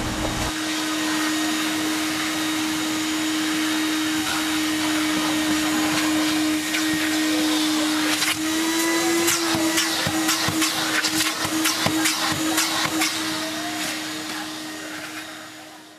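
Vacuum cleaner running with a steady hum as its hose nozzle works over a car's back seat. From about halfway, rapid clicks and rattles come through the hose. It fades out near the end.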